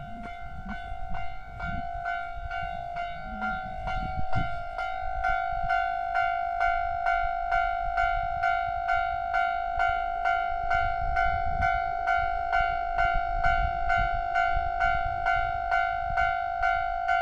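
Japanese railway level crossing warning bell ringing: a steady ringing tone that starts suddenly and pulses about three times a second.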